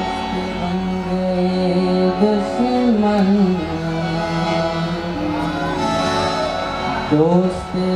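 Qawwali: a solo voice singing long lines that bend and glide in pitch over a steady harmonium drone, with a rising glide about seven seconds in.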